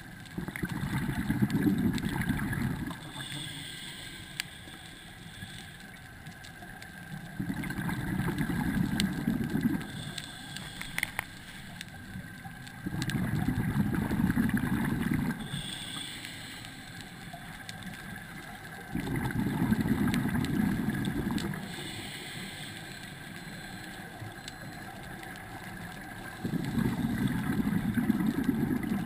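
Scuba diver breathing underwater through a regulator: five bubbling exhalations, each lasting two to three seconds and coming about every six seconds, with quieter stretches between them.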